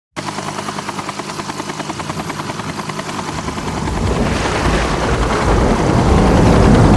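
Helicopter rotor chopping in a fast even beat of about ten pulses a second, growing louder and rougher from about halfway through.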